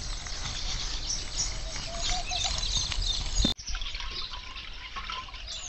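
Small birds chirping over a steady low rumble, with liquid poured from a clay pot into leaf cups. The sound drops out sharply for a moment about three and a half seconds in.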